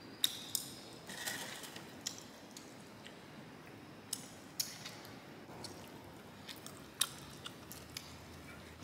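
People chewing and gnawing bone-in chicken, with soft mouth sounds and scattered short, sharp crunches and clicks.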